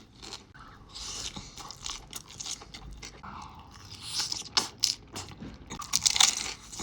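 Close-miked chewing and crunching of food in the mouth, with wet mouth clicks, getting louder in the second half.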